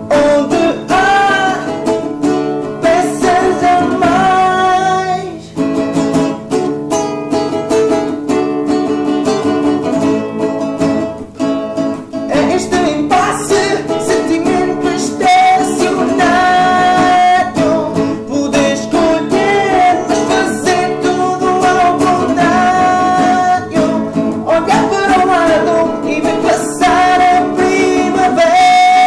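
A song sung in Portuguese over acoustic guitar accompaniment, the vocal line running continuously over plucked and strummed strings.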